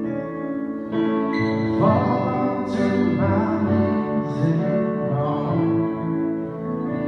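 Acoustic guitar playing a slow worship song, with a singing voice coming in about two seconds in and holding long notes.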